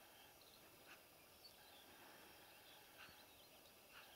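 Near silence, with small birds giving faint, high chirps now and then.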